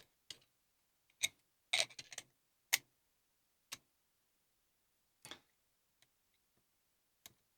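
Light metallic clicks and ticks, scattered and irregular, as a tool loosens parts of an ACE A527 pin-tumbler padlock to take it apart.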